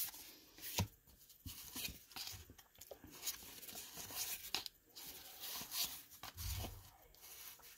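Cardboard baseball cards being handled and slid one behind another in the hands: soft papery rustles with scattered faint clicks as the card edges catch.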